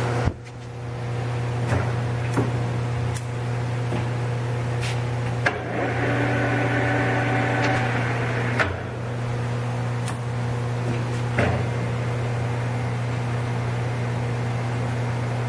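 Jet GH-1640ZX geared-head engine lathe running with a steady low hum while being shifted to a different spindle speed. The sound drops away briefly just after the start and again a little after eight seconds, with scattered clicks and knocks. A whining tone rises about six seconds in and stops near eight.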